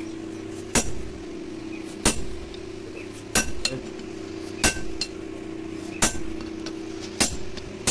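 Hammer blows on red-hot blade steel lying on a railway-rail anvil: six strikes about 1.3 s apart, each with a short metallic ring.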